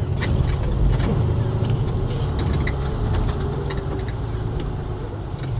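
Semi-truck on the move heard from inside the cab: a steady low engine and road drone, with scattered light clicks and taps over it.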